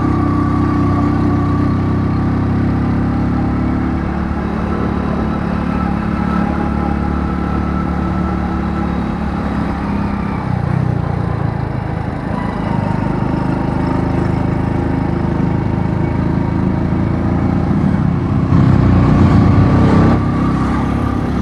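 100cc single-cylinder motorcycle engine running while riding, its pitch changing about halfway through. A louder rushing noise comes in near the end.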